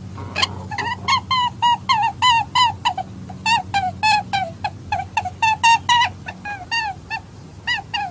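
A rapid run of short, pitched animal calls, about three a second, each bending down slightly in pitch.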